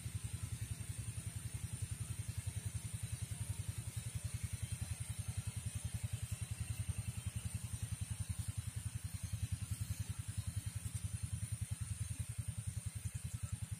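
A small engine running steadily, with an even, rapid low thumping.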